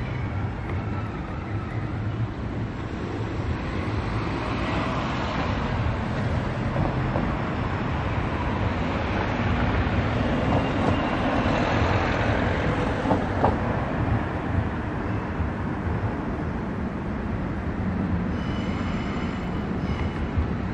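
Metrovagonmash metro train rolling along an elevated viaduct, its wheel and motor noise swelling to a peak about halfway and then easing as it slips under the station roof. A few thin high tones come in near the end.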